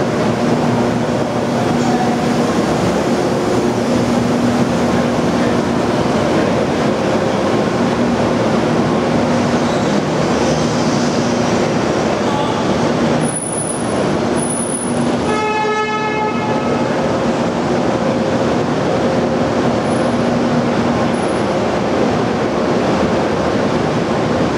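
Diesel locomotives idling in an enclosed underground station, a steady loud drone with a constant hum, mixed with crowd chatter. About fifteen seconds in there is a short horn toot.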